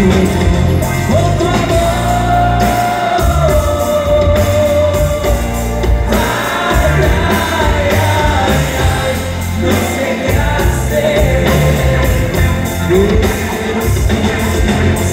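Live grupera band playing loud amplified music: a held, gliding sung melody over bass and drums.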